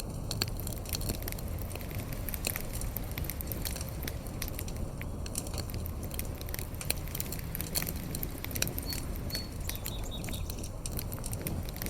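A fire burning with steady crackling: many sharp, irregular pops over a low, steady rumble of the flames. Two faint, short, high whistles come about nine seconds in.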